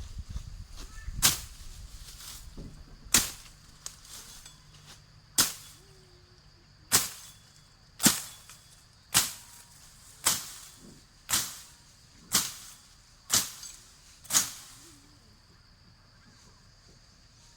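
A series of sharp strikes, about one a second, eleven in all, each dying away quickly; they stop about 14 seconds in.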